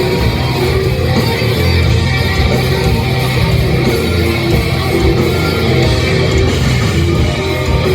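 Nu-metal band playing live through a club PA, loud distorted electric guitars with heavy bass and drums, recorded from the crowd.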